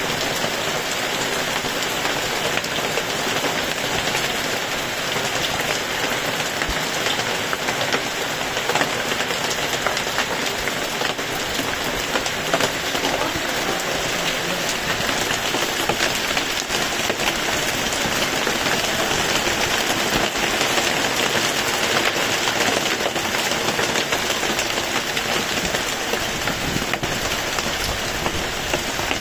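Heavy rain pouring down steadily, an even hiss of falling drops that does not let up.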